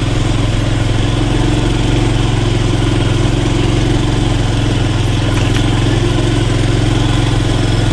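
Motorbike engine running steadily at low, even revs.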